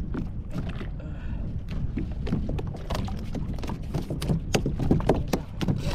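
Choppy water slapping and knocking against a plastic fishing kayak's hull, with wind over a steady low rush. The short slaps come more often in the second half.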